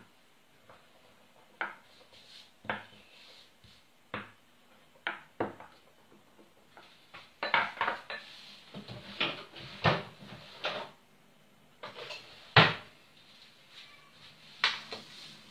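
Separate knocks and taps of kitchen utensils on a wooden cutting board as a rolling pin and a knife are handled over a sheet of rolled-out fondant and the fondant is cut. The taps come sparsely at first and then more often, with the sharpest knock about twelve seconds in.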